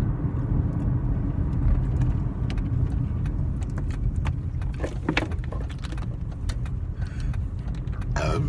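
Steady low rumble of a car heard from inside the cabin, with scattered small clicks and rustles and a brief louder rustle near the end.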